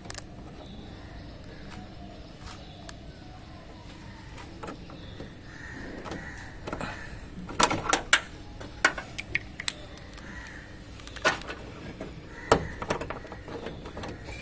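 Plastic clicks and knocks from a tail-lamp bulb socket and its wiring being handled and twisted into the rear light housing. Several sharp clicks come in a cluster about halfway through, with more scattered toward the end, over a steady background hiss.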